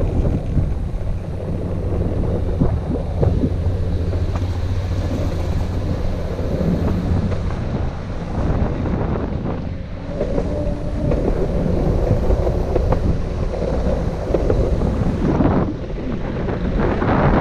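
Longboard's urethane wheels rolling fast over rough, bumpy concrete and weathered slurry-seal asphalt, a steady rumble, with wind buffeting the microphone.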